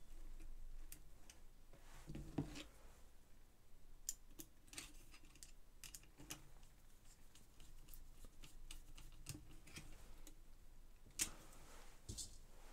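Faint scattered clicks and light knocks of a screwdriver and small metal parts being handled on a workbench. A few knocks are louder, one about two seconds in and two near the end.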